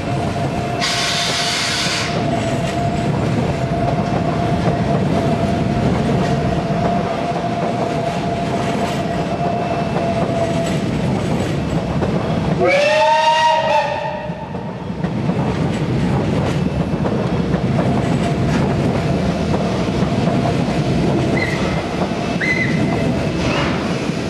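SNCF 141 R Mikado steam locomotive standing with steam hissing and a steady rumble, with a short sharp burst of steam about a second in. About halfway through it gives one whistle blast of about a second, its pitch bending as it opens and closes: the departure whistle.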